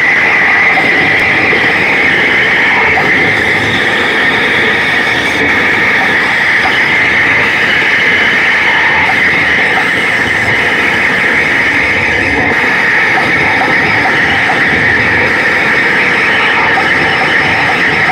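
Loud, steady, dense noise from the stage show's PA loudspeakers, heavily distorted on the phone's microphone, with no clear beat or words coming through.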